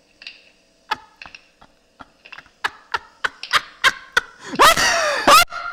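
A rolling pin knocked in a quick run of sharp knocks, about three a second, followed near the end by a short burst of laughter.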